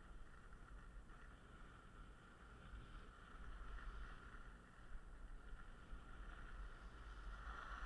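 Faint, steady hiss of skis gliding over packed snow, with low wind rumble on the microphone.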